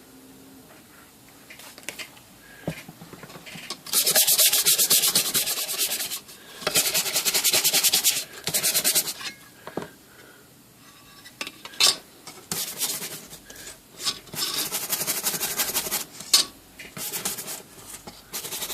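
Rapid scrubbing strokes on a typewriter's painted metal cover panel, in several bursts of about two seconds each, with a few sharp clicks and knocks between them.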